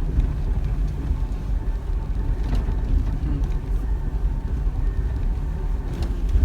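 Jeep Wrangler driving on a gravel road: a steady low rumble of engine and tyres, with a few light ticks.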